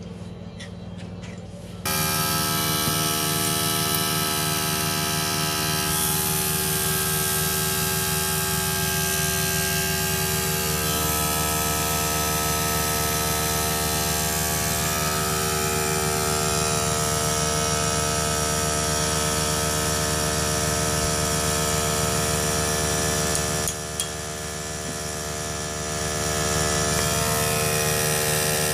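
A small engine or motor running at a steady speed. It starts suddenly about two seconds in and drops briefly near the end before picking up again.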